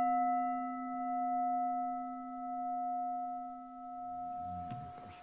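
A singing bowl ringing after a single strike, its tone slowly fading with a gentle wavering swell in loudness.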